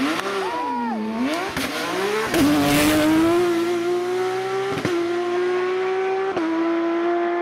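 Porsche rally car engine blipped up and down twice, then held at full throttle as it accelerates. The revs climb slowly and are broken by two quick gear changes.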